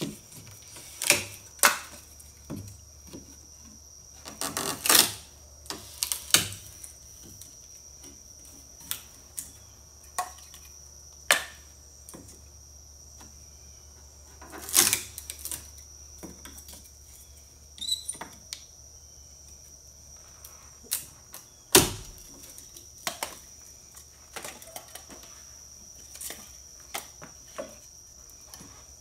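Sharp, irregular knocks and cracks of sticks of wood being split into kindling with a long blade on a homemade wall-mounted kindling splitter, one strike every second or two, with a faint steady high whine underneath.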